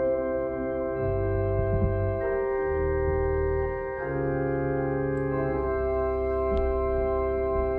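Organ playing slow sustained chords, the bass line and harmony shifting every second or two.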